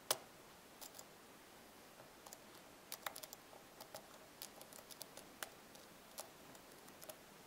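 Faint, irregular small metallic clicks and ticks from a lock pick working the pins of an MU pin-tumbler cylinder with serrated drivers, held under tension. One sharper click comes right at the start.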